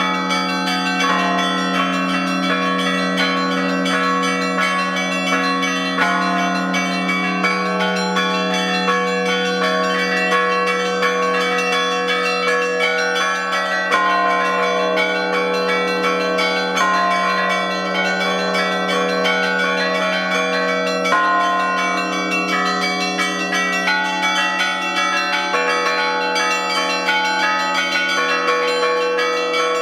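Russian Orthodox church bells rung together by one bell-ringer: a continuous, dense peal of many bells striking over the steady deep hum of a large bell, with a heavier stroke now and then.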